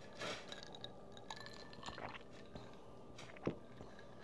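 Two people sipping iced kefir water from glasses: faint sips and swallows with small clinks of ice against glass, and one sharper knock of glass near the end.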